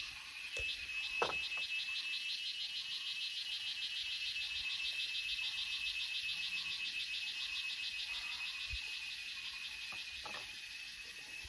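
Wildlife calling in nearby vegetation: a rapid, evenly pulsing high trill of several pulses a second, over a steady high whine. A few light knocks of a spoon and knife on crockery and a wooden board come about a second in and again near the end.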